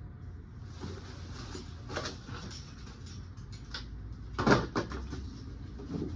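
Scattered scraping, rustling and knocking of hands and tools working soil and a plant pot during transplanting, with one louder knock about four and a half seconds in, over a steady low rumble.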